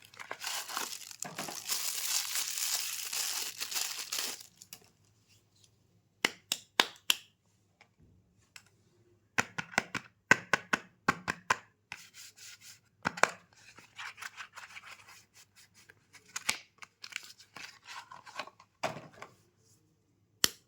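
Soap packaging being torn open: a continuous tearing for about four seconds, then scattered crinkles, taps and clicks as the wrapper and box are handled.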